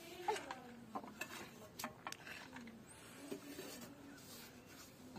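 Faint scattered clicks and short rustles as a small child handles things on sand and scrapes sand with a hand trowel.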